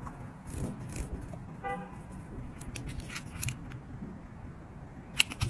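Soft handling clicks and rustles of pipe-cleaner petals and a hot glue gun being worked, with one sharp click about five seconds in. A brief horn toot sounds in the background about two seconds in.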